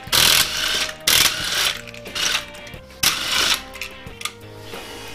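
Car wheel nuts being taken off: several short bursts of noise, each about half a second long, with metallic clinks of the loose wheel nuts. Background music plays underneath.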